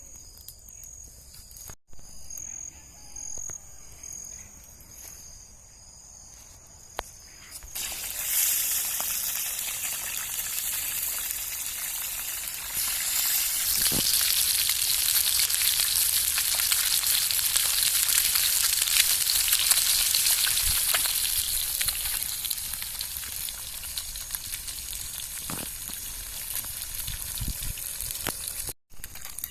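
Frying pan sizzling hard over a campfire: a loud hiss that starts suddenly about a quarter of the way in, swells through the middle and eases off toward the end. Crickets chirp steadily before the sizzling starts.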